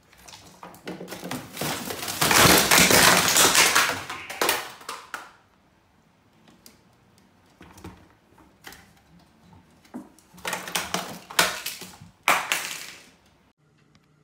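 A cat rummaging on a kitchen cabinet shelf, knocking and rattling the bottles and packets there. It makes two long stretches of clattering and rustling, the first starting about a second in and the second about ten seconds in, with a few stray knocks between them.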